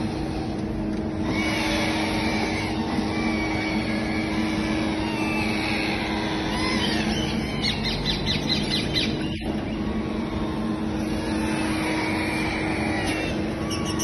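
Many small parrots chirping and chattering together in wire shipping crates, over a steady mechanical hum.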